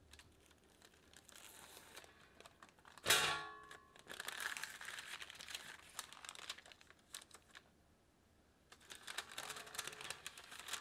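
Parchment baking paper crinkling and rustling as a sponge cake is lifted out of its lining and the paper peeled back, with one sharp metallic clank and a short ring from the square metal cake pan about three seconds in.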